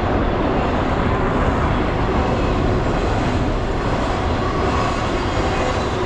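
BNSF intermodal freight train's container cars rolling past, a steady rumble of wheels on rail.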